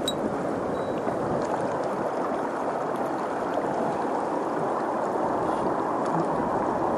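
Mountain stream water running, a steady rushing noise.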